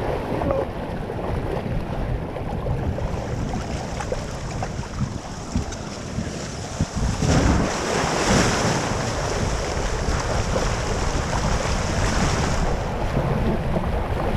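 Water rushing and splashing around inner tubes sliding down a water slide, with wind buffeting the camera microphone. The rush grows louder about seven seconds in.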